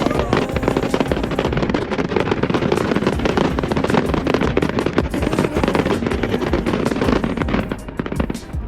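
Fireworks going off in a rapid, dense barrage of bangs and crackles, many a second, over background pop music. The bangs thin out near the end.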